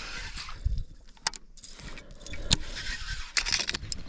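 Fishing tackle handled close to the microphone: a few sharp clicks and a light metallic jingling, as a baitcasting reel and lure are worked by hand.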